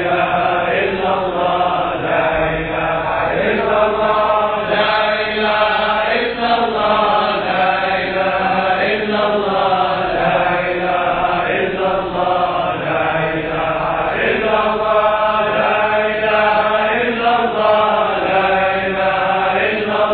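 Sufi dhikr: voices chanting an Arabic litany of remembrance of God, a short phrase sung again and again without a break.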